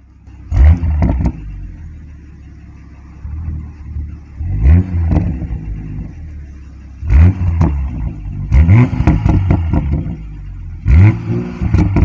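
2020 Toyota Supra's turbocharged 3.0-litre BMW inline-six, exhaust in sport mode, revved hard about five times from idle while standing still. Each blip rises quickly and falls back to a steady idle, with sharp cracks as the revs drop.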